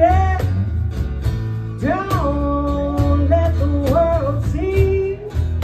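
Live acoustic band music: a woman singing long, gliding notes without clear words over strummed acoustic guitars, a low bass line and a steady beat.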